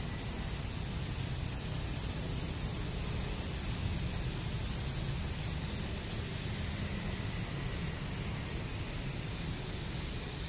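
Steady splashing and rushing of a tiered fountain's small jets and cascades falling into stone pools, with a low rumble underneath.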